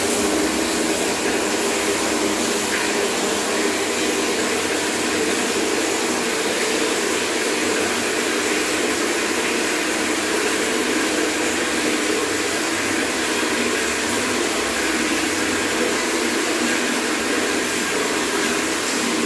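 Tap water pouring steadily into a bucket: a continuous, even rush of splashing water.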